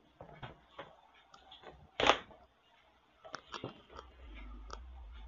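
Handling noise from a condenser microphone, its spider shock mount and pop filter being fitted: scattered clicks and knocks, with one loud knock about two seconds in and a quick run of clicks later. A low hum comes in near the end.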